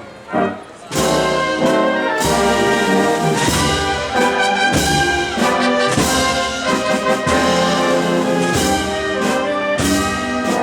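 Spanish processional wind band playing a march, brass-led with trombones and trumpets over regular drum strokes; after a soft moment the full band comes in loudly about a second in.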